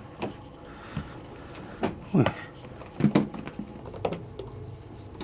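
Knocks and clunks of a washing machine being handled as its panel is refitted: about half a dozen irregular knocks. The loudest come a little past two and three seconds in, one with a short scrape.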